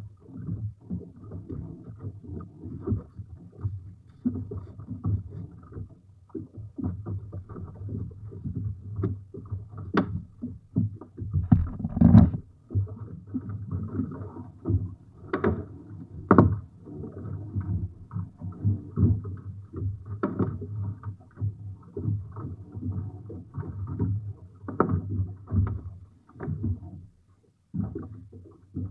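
Prawn net being hauled aboard a small fishing boat in wind: a continuous low rumble of wind and choppy water against the hull, with irregular knocks and thumps from the net, floats and boat, several louder ones midway.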